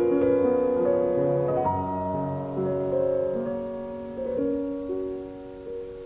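Solo piano played live: a slow, lyrical line over sustained chords, growing softer through the second half.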